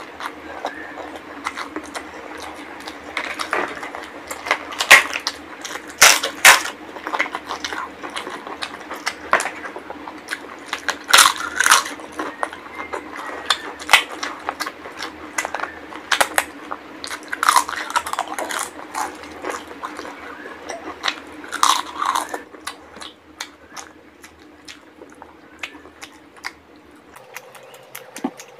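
Close-miked wet chewing and lip-smacking of someone eating rice and mutton curry, with irregular sharp clicks and smacks that come in clusters. It grows quieter near the end.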